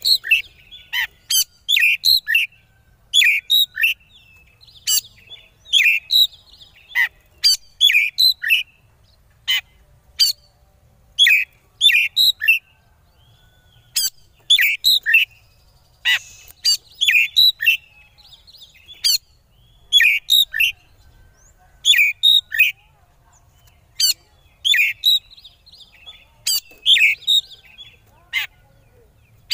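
Oriental magpie-robin (kacer) calling in short, rapid bursts of sharp chattering notes, roughly one burst a second with brief pauses between. This is the agitated, stuttering 'konslet' style that keepers play to provoke rival birds.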